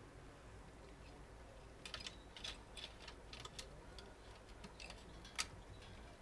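Light, irregular clicks and ticks, a few a second, starting about two seconds in, with one sharper, louder click near the end.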